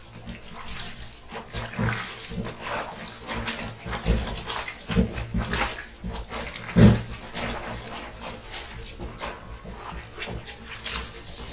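Soapy kitchen towels being rubbed and squeezed by hand in a plastic bucket of water, with irregular squelching and sloshing strokes. The strongest strokes come about two-thirds of the way through.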